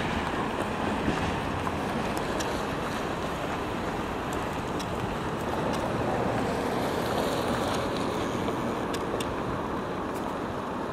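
Freight train of enclosed autorack cars rolling past: a steady rolling noise of steel wheels on the rails, with a few faint clicks scattered through it.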